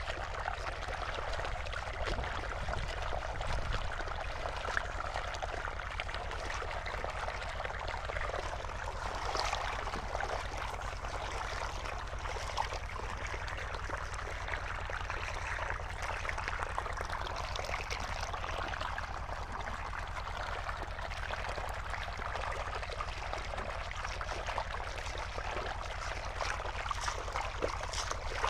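Shallow water running steadily over gravel, with light splashing and a few faint clicks of stones as chromite ore gravel is washed by hand in it. A steady low hum runs underneath.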